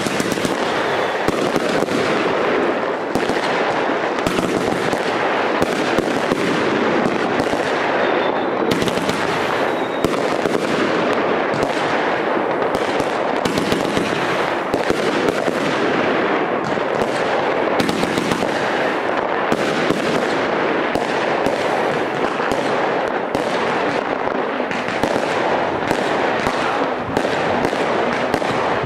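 New Year's Eve fireworks crackling and popping densely, many small bangs overlapping without a break.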